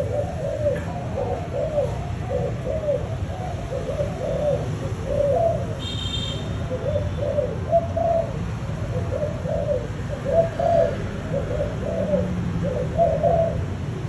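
Young spotted dove of a Malaysian cooing strain, giving a long unbroken run of short, arched coos at about two a second: the rapid 'thúc gù' cooing that keepers breed these birds for.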